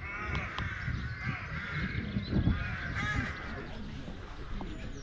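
Crows cawing, several short calls about a second apart in the first three seconds or so.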